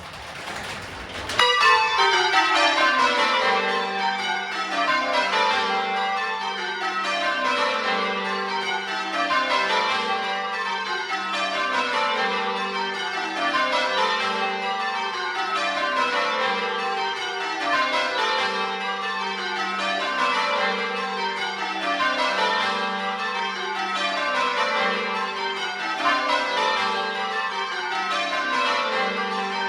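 A ring of ten church bells, the heaviest tuned to G, being rung full circle in changes: a steady stream of strokes that run down from treble to tenor over and over, heard close up from inside the belfry. The ringing grows loud about a second in.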